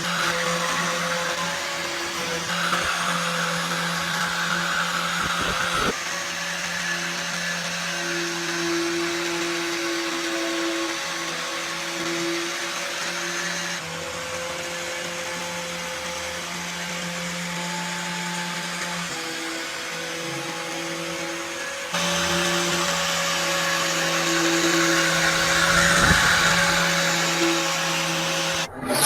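A small electric power tool motor running steadily with a constant hum and hiss. The sound shifts abruptly a few times where takes are spliced together.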